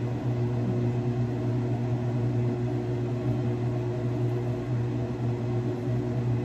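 Steady low mechanical hum with a few even tones, unchanging throughout.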